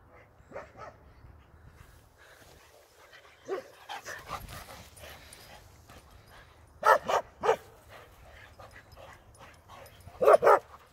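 Dogs barking in short clusters: a bark or two about three and a half seconds in, three quick barks about seven seconds in, and three more near the end.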